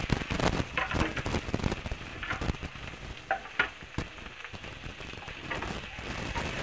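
Onions and freshly added chopped tomatoes and green chillies sizzling and crackling in hot oil in a frying pan, with many small pops and clicks.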